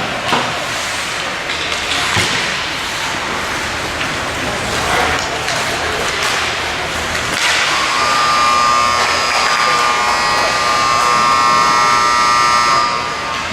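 Ice hockey play in a rink: skate scrapes and a few sharp stick and puck knocks, then about halfway in a steady electric buzzer horn sounds for about five seconds and stops near the end, the typical arena horn that ends a period or game.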